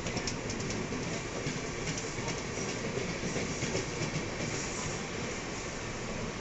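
Train running on the rails: a steady rumble of wheels on track, with a run of sharp clicks from the rail joints near the start.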